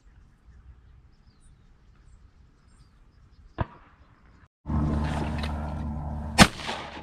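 A sharp click a little past three and a half seconds in, then loud rustling and clatter of a hunter rising fast out of a panel blind, and a single blast from a Benelli Super Nova pump shotgun about six and a half seconds in.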